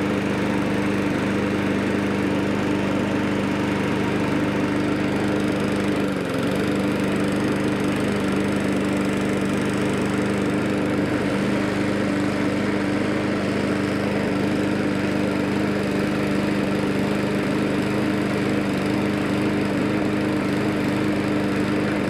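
Briggs & Stratton four-stroke lawn mower engine running steadily just after a cold start, with a brief dip in speed about six seconds in.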